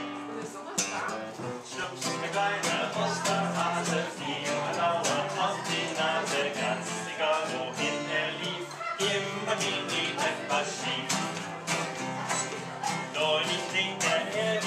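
Background music: an upbeat acoustic guitar tune with plucked notes over a steady beat.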